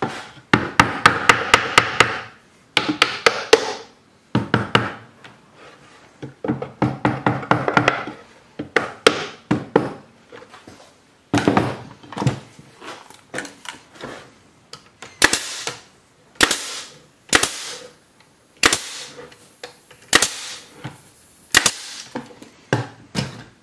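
Hammer tapping nails into rough-cut wooden frame strips in quick runs of strikes. Later come single sharp shots of a pneumatic brad nailer fastening the strips, roughly a second apart.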